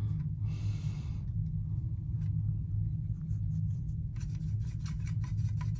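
A watercolour water brush swishing and scrubbing paint in a plastic palette well for about a second, then rubbing and dabbing over the paint cakes with a run of small scratchy ticks near the end, under a steady low hum.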